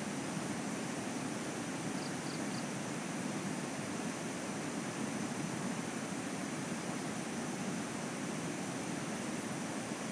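Steady rushing outdoor noise, even and unbroken, with a faint high steady whine above it and three quick faint chirps about two seconds in.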